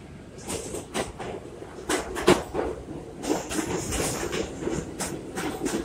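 R62A subway train pulling into an elevated station, its wheels clattering over the rails with irregular sharp clacks over a steady rumble. It gets louder from about two seconds in as the cars pass close by.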